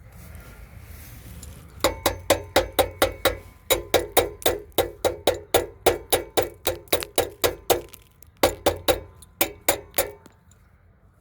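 Rapid, evenly paced metallic knocks, about four or five sharp strikes a second, like a tool tapping on metal, with a short break near the end.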